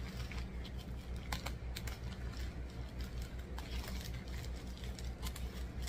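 A plastic mailer packet being cut and picked open with a small hand tool: scattered light clicks and crinkles. A steady low hum runs underneath.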